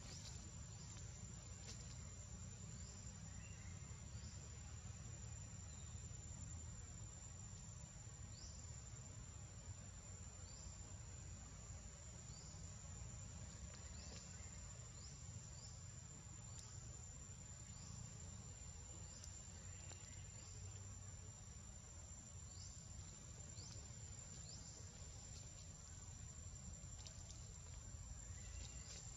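Faint, steady high-pitched insect drone, one unbroken tone, with short rising chirps scattered through it over a low rumble.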